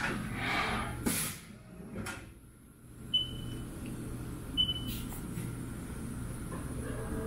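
1998 Haas VF-4 CNC vertical mill under power: a steady machine hum with a hiss about a second in and a click, then two short high beeps from the control as its keys are pressed.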